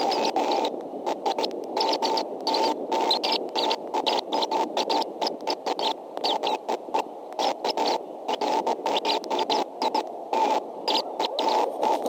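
Steady hiss from an outdoor nest camera's microphone, broken by many short, irregular crackles.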